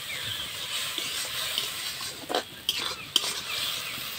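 Spatula stirring and scraping a thick mustard-poppy paste in a metal kadai as it sizzles in oil. There are a few scraping strokes and a sharp clink of the spatula on the pan about three seconds in.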